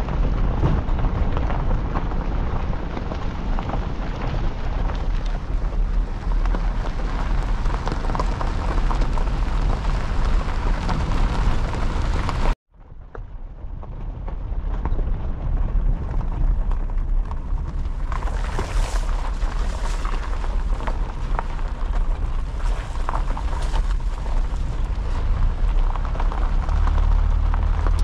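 A vehicle driving on a loose gravel dirt road: a steady rumble of tyres on gravel and stones, with engine and road noise. It cuts out abruptly about twelve seconds in, then fades back up.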